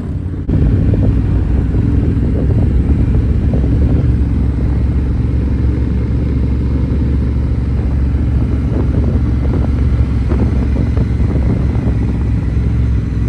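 Honda Rebel 1100 motorcycle's parallel-twin engine running at a steady cruise while riding, with road and wind noise.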